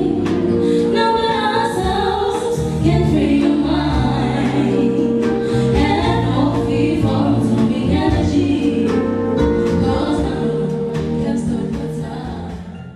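Two women singing a song together into microphones, with backing music; the music fades out near the end and stops.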